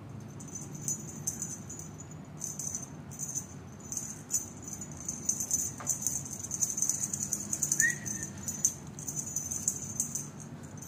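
Something small shaken in bursts, giving a quick high rattling jingle that comes and goes, busiest in the second half. A brief faint high chirp about eight seconds in.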